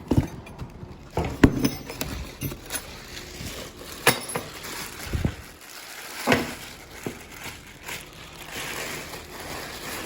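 Scattered knocks and light metallic clinks as a small benchtop wire stripping machine is handled and lifted out of its packaging.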